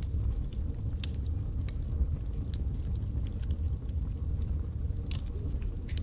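Logs burning in a fireplace: irregular sharp crackles and pops over a steady low rumble of the flames, with a stronger run of crackles about five seconds in.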